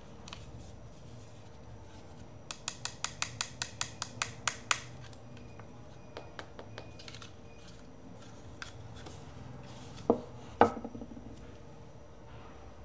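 Small parts and tools being handled during a portable-speaker teardown. A quick, even run of about a dozen sharp clicks is followed by a few light ticks, then two knocks as parts are set down.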